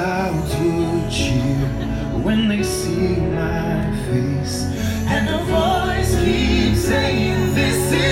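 Nighttime fireworks show soundtrack playing: music with singing.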